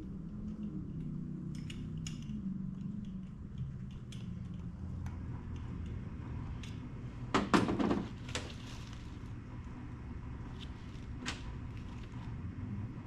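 Scattered clinks and knocks of small metal parts and tools being handled during carburetor work, with one louder clatter a little past halfway, over a steady low hum.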